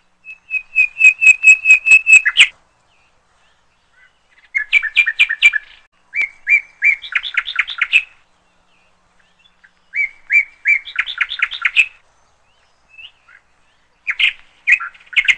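A songbird singing: five loud phrases of fast repeated whistled notes, each lasting one to two seconds, with quiet pauses of a second or two between them. The first phrase is a run of even notes at one pitch ending in a brief flourish.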